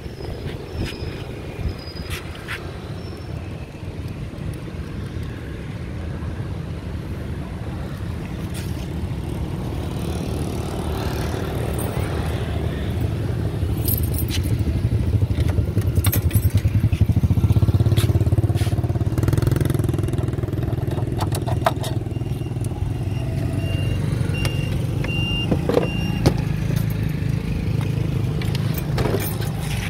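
A motor vehicle running: a steady low rumble that grows louder toward the middle, then eases a little, with scattered light clicks.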